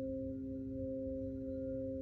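Singing bowl ringing with a steady, sustained tone of several held pitches, the highest one gently wavering.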